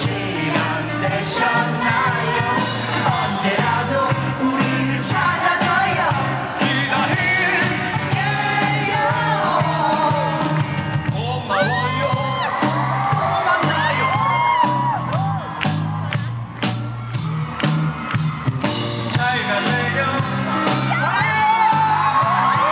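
Live rock band playing at full volume: electric guitar, drums and a male lead singer on microphone, with the crowd whooping and shouting along.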